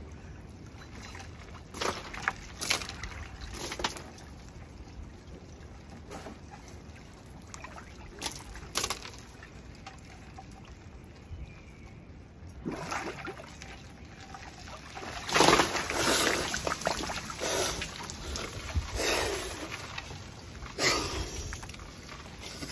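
Ice-cold water sloshing and splashing in a plastic stock-tank cold plunge as a person goes fully under and comes back up. A few short splashes come early, then louder splashing and water running off his body in the second half as he surfaces.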